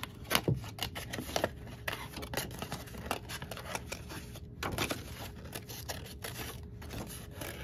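Scissors snipping through folded paper in many short, irregular cuts, working around a small circle to cut it out.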